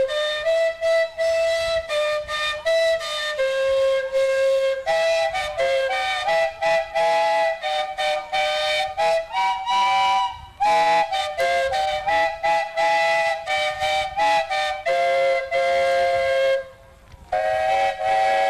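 Steam calliope built from ten antique steam whistles, blown by steam from a 1914 Huber 25/55 traction engine, playing a tune of short and held notes, sometimes two or three at once. It breaks off briefly near the end, then sounds again.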